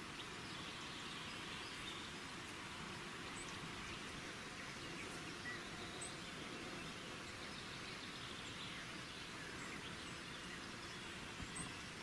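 Steady, faint outdoor ambient hiss with a few faint high chirps and soft ticks.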